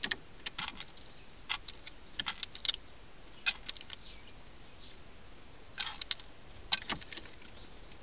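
Blackbird pecking and moving about at a feeding dish: small clusters of quick, sharp taps and clicks, seven or so groups spread unevenly through.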